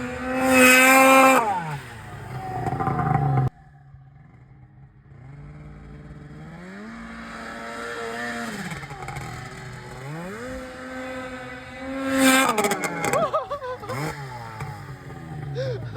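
Polaris RMK 700 snowmobile's two-stroke engine revving up and falling back again and again. The loudest rev comes near the start. Its sound drops off suddenly about three and a half seconds in, then it builds through several more quieter rev swells to another loud peak about twelve seconds in.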